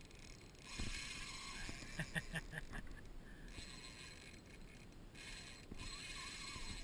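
Spinning reel working against a hooked permit on a bent rod, giving an intermittent gritty mechanical whir. A thump comes a little under a second in, and a quick run of clicks about two seconds in.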